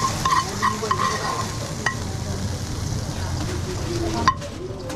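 Food sizzling as it fries in a hot pan and is stirred, with two sharp knocks of a utensil; the sizzle cuts off sharply just after the second knock, near the end.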